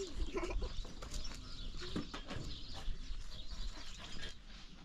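Scattered short animal calls among small knocks and clicks.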